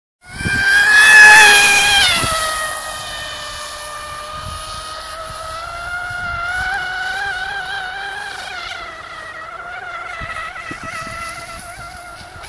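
Radio-controlled F1 racing boat's motor running flat out with a high-pitched whine. It is loudest about a second in, drops in pitch around two seconds as the boat passes, then carries on steadier and fainter with a slight waver as the boat runs on across the water.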